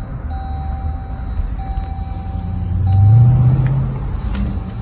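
Dodge SRT's V8 engine running, heard from the cabin, its rumble swelling briefly about three seconds in as the car is driven. Over it, a steady electronic tone sounds as three long beeps about a second each.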